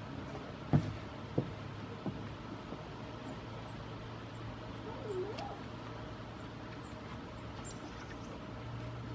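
Three sharp knocks in quick succession, the first the loudest, then a short, soft goat call that dips and rises in pitch about five seconds in.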